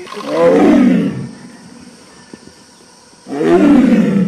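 A tiger roaring twice, each roar about a second long and about three seconds apart.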